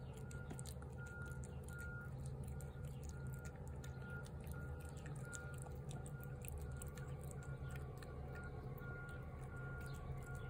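A garbage truck's backup alarm beeps at a steady, even pace over the low hum of the truck's engine. Close by, a cat chews wet food, making faint wet clicking sounds.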